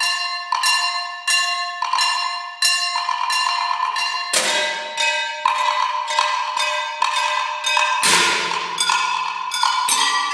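Solo percussion on struck metal: quick, steady strokes on pitched, bell-like metal objects, each left ringing with clear tones, and heavier crashing hits with a deeper ring about four and eight seconds in.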